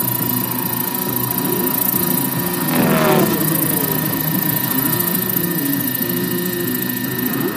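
Radio-controlled scale model helicopter flying, its motor and rotor running steadily. It gets loudest as it passes about three seconds in, its pitch dropping as it goes by.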